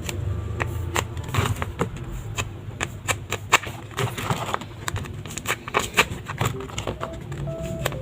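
Irregular clicks and taps of small objects being handled, several a second with gaps.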